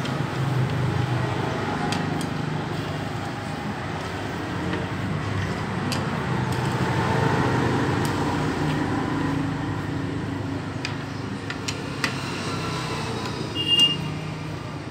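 Steady road-traffic and vehicle engine noise, with a few sharp clicks scattered through it and a short high beep near the end.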